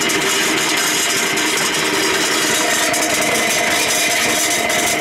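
Concrete mixer running steadily, its drum turning over a wet concrete mix.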